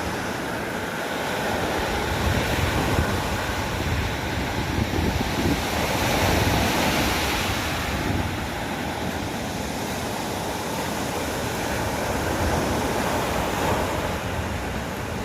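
Surf washing onto a beach, a steady wash of waves that swells louder about halfway through, with wind on the microphone.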